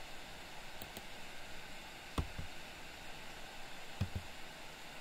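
Steady microphone hiss with a few computer mouse and keyboard clicks: two faint ticks about a second in, then a pair of sharper clicks a little after two seconds and another pair about four seconds in.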